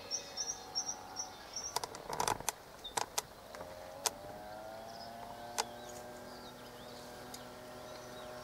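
Honeysuckle berries poured onto a plastic dryer tray, clicking and rattling about two seconds in, with a few single clicks after. Birds chirp at the start. From about three and a half seconds a steady motor hum rises slightly in pitch and then holds.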